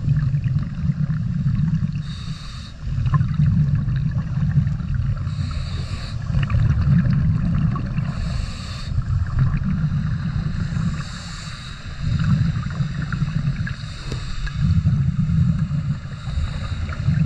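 Scuba diver breathing through a regulator, heard underwater: a short hiss on each inhalation, then a longer low rumble of exhaled bubbles, repeating about every three seconds.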